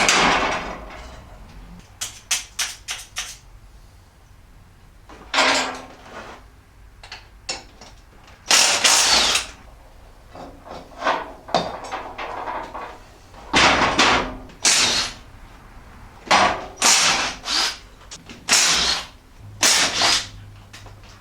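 Impact wrench running in repeated short bursts, about a second each, spinning the lug nuts off an ATV's wheels, with small clicks and knocks between the bursts.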